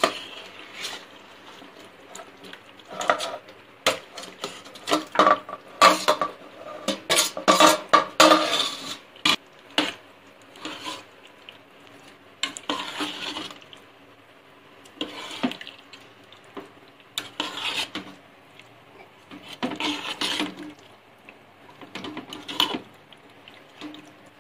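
Metal spoon scraping and clinking against a stainless steel pot as marinated chicken pieces go in from a steel bowl and are stirred into a thick masala paste. Busiest in the first third, then separate stirring strokes every couple of seconds.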